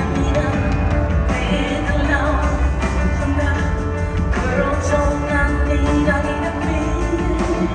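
Live rock music, a woman singing over the band with a steady heavy bass.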